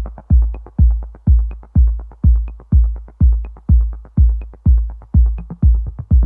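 Electronic background music built on a deep, booming kick drum about twice a second, with light ticks in between.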